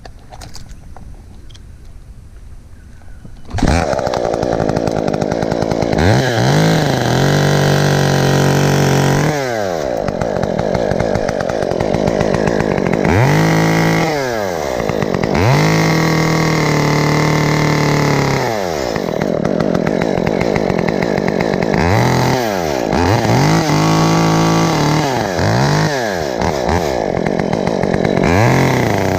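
Small two-stroke saw engine comes in suddenly about three and a half seconds in, then revs up and drops back again and again, about six times, as it cuts branches.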